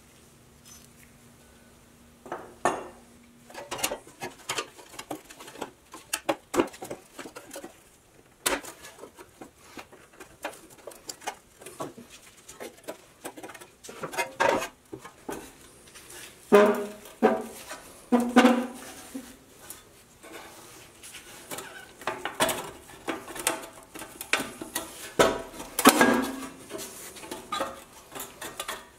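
Pressed-steel toy truck parts being handled on a wooden workbench: a run of light metallic clinks, taps and knocks, with a few louder knocks near the middle and near the end.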